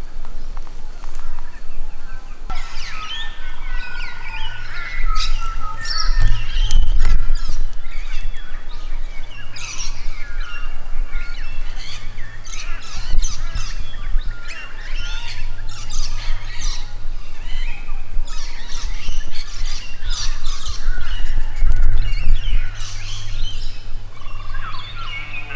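A dense chorus of Australian bush birds chirping, warbling and squawking, starting about two and a half seconds in, over a low steady rumble that swells a few times.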